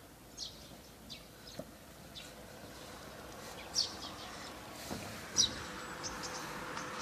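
Short, high bird chirps, about five spread over several seconds, the loudest two near the middle and later, over a faint background hum that grows in the second half.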